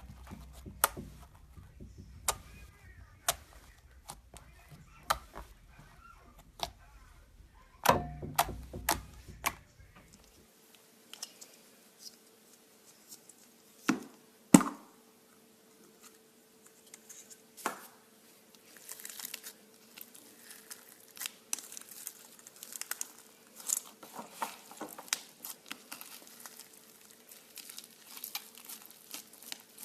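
Slime being squeezed and poked, making sharp wet clicks and pops, then denser crackling from about a third of the way in. At the change a faint steady tone begins and runs underneath.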